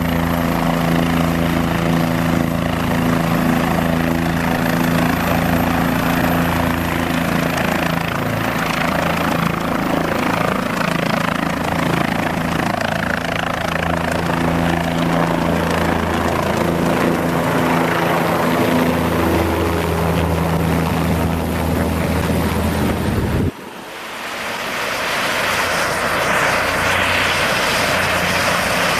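Bell 407 helicopter's main rotor and turbine engine running at lift-off power as it lifts off and hovers: a steady loud rotor and engine sound with a held hum underneath. About 23 seconds in it cuts off abruptly, and a broad rushing noise builds back up over the next few seconds.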